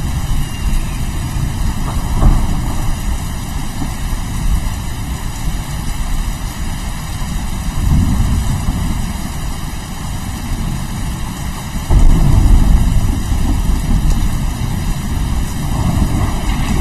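Rain falling with thunder rumbling: a continuous deep rumble under the hiss of the rain, swelling about two seconds in and again around eight seconds, with the loudest peal breaking in suddenly about twelve seconds in.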